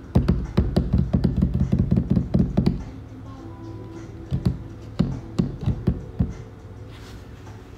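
Quick, irregular taps and knocks close to the microphone, several a second for the first three seconds, then a few scattered ones until about six seconds in, over quiet background music.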